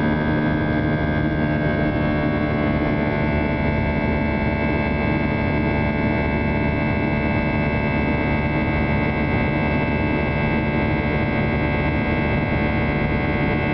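Airbus A320 cabin noise in the climb after takeoff: a steady jet engine drone and air rush with several steady whining tones, which shift slightly about two seconds in.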